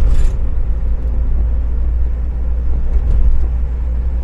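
Motor vehicle driving along a road: a steady, deep rumble of engine and road noise.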